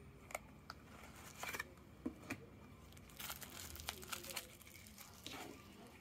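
A cardboard knife box being handled and opened with a few light clicks and taps, then clear plastic wrapping crinkling in bursts as the wrapped knife is lifted out and turned in the hands.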